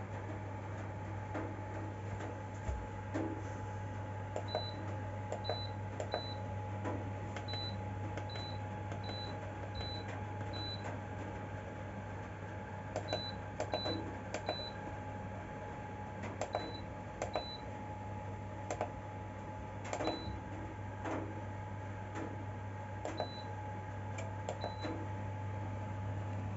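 Ceramic fan heater running with a steady hum and tone while its control buttons are pressed: a couple of dozen clicks at irregular intervals, most of them followed by a short high beep.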